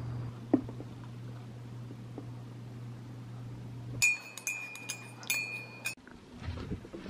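Metal spoon stirring coffee in a ceramic mug, clinking against the side in a quick run of ringing clinks for about two seconds, starting about halfway through. Before that, a low steady hum and a single knock.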